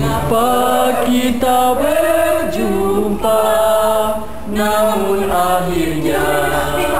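People singing a melody together, with long held notes that slide between pitches.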